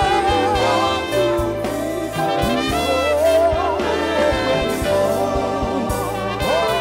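Live gospel praise singing: a woman's voice leading over band accompaniment with a steady bass line and drums.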